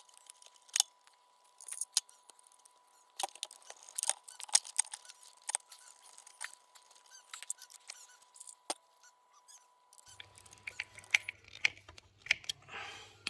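Hands working electric scooter motor cable connectors, plugging the wires together: scattered small clicks, taps and plastic-and-wire rattles.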